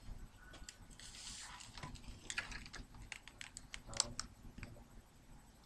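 Irregular light clicks and taps of typing on a computer keyboard, with a short rustle about a second in.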